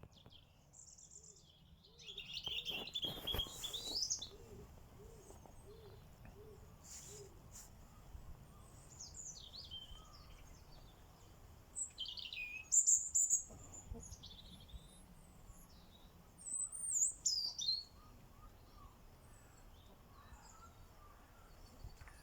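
European robin singing: short, high, rapidly varied phrases broken by pauses, heard four times. Underneath, a lower soft call repeats about twice a second for a few seconds near the start.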